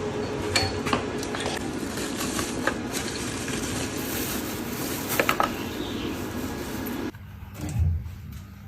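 Metal parts and tools clinking and knocking a few times over a steady mechanical hum, which cuts off suddenly about seven seconds in.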